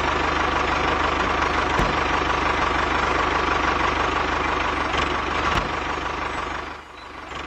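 A small engine or motor running steadily with a fine, even pulsing, fading out near the end.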